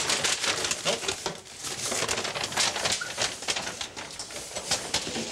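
A brown paper bag crinkling and rustling in quick, irregular scrunches as it is held open on a tiled floor and a snake is pushed into it with snake tongs.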